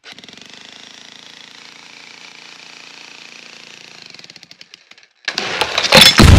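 Electric heavy breaker hammering its chisel into a brick garden wall pier, a fast, even rattle that dies away about four and a half seconds in. About a second later a much louder booming sound with sharp hits cuts in.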